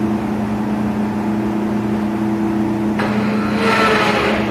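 Acra/Leader 17-inch by 55-inch engine lathe running with a steady motor and gear hum. About three seconds in, a louder whirring with a gliding whine rises for about a second and a half.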